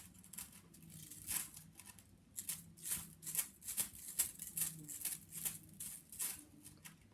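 Fidget toys handled close to the microphone for ASMR: a quick run of short scratchy clicks and rustles, a few each second.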